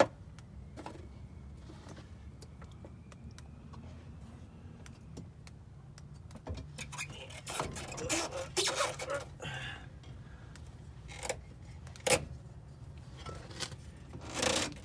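Scattered metallic clinks and scrapes of hand tools and parts being handled during car suspension work, with a busier run of clattering and rustling about halfway through, over a steady low hum.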